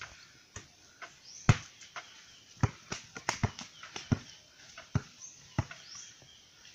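Basketball hitting the backboard and bouncing on hard dirt ground: a string of sharp knocks, the loudest about a second and a half in.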